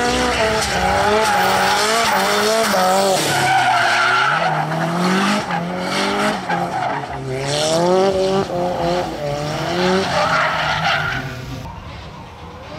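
Nissan S13 drift car sliding sideways: the engine revs rise and fall again and again with the throttle while the tyres squeal and hiss as they spin. The sound drops off sharply near the end.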